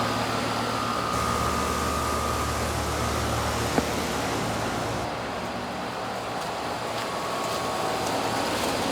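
Heat pump outdoor units running: a steady compressor and fan hum, with one short click about four seconds in and the hiss easing off about a second later.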